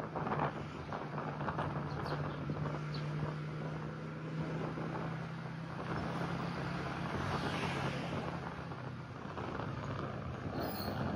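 Street traffic with a vehicle engine running at a steady hum, and wind on the microphone.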